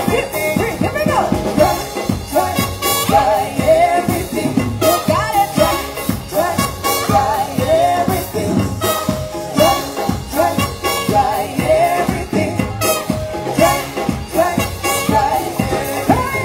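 Live band playing a tune with a steady beat, trumpet and guitar carrying the melody, with a singer.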